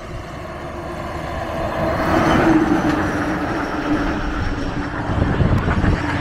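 Heavy lorry passing at highway speed: the rush of its engine and tyres builds over the first couple of seconds, and its droning note drops a little in pitch as it goes by. The road noise carries on loud afterwards.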